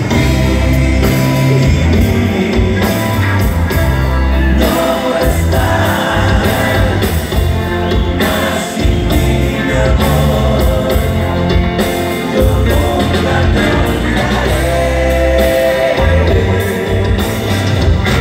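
A grupera band playing live and amplified, with a singer's voice over a full band of electric guitar, bass and drums. The music is loud and steady, with heavy bass and no breaks.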